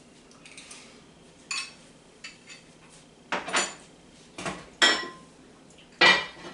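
Utensil clinking and scraping against a small bowl as a serving of orzo pasta is stirred and scooped up to taste: about half a dozen sharp clinks, the loudest two near the end.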